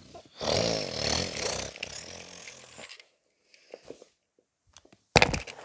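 A person making a raspy, buzzing car-engine noise with the mouth for about two and a half seconds, imitating a toy car driving, then a short, loud burst of knocks and rustling near the end.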